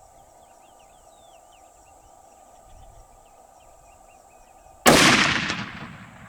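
Insects and birds chirping in the background, then about five seconds in a single loud rifle shot that cracks and then fades away over a second or so.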